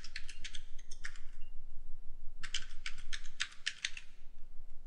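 Computer keyboard being typed in two short runs of quick keystrokes, one at the start and another about two and a half seconds in: a password entered and then entered again at a terminal prompt.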